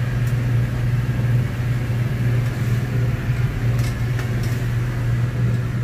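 Gas stove burner running under a wok, giving a steady low hum, with a couple of faint clinks of the metal ladle against the pan about four seconds in.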